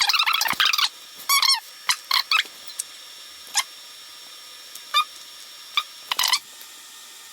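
Irregular short squeaks of packing foam rubbing against itself and the printer as it is pulled out of the box, in clusters with brief gaps.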